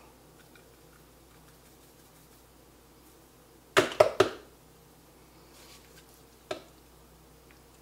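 Three quick, loud, sharp knocks close together about four seconds in, then a single lighter knock a couple of seconds later, over an otherwise quiet background.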